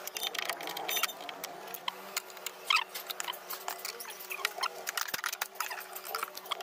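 Sped-up sounds of a Tata Indica Vista's plastic door trim being taken apart with a screwdriver: a quick scatter of small clicks, taps and scrapes over a faint steady hum.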